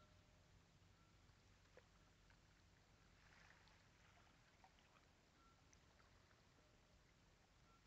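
Near silence: faint outdoor ambience over calm water, with a steady low hum and a few faint ticks.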